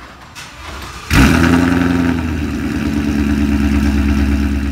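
A Ford Mustang's 5.0 V8 is started about a second in. It flares briefly on start-up, then settles into a steady, loud idle. Before it fires, a garage door opener runs faintly.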